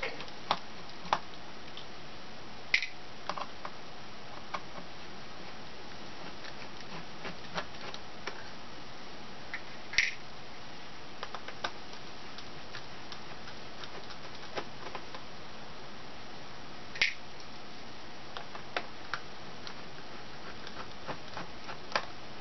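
Small screwdriver and tiny screws clicking and tapping, sparse light ticks with a few sharper ones, while the front screws are taken out of a Toshiba Satellite laptop's screen brackets.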